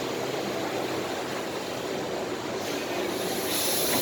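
Surface grinder running through its automatic measuring cycle: a steady mechanical noise, with a high air hiss starting near the end as the air-blast cleaning of the measuring point begins.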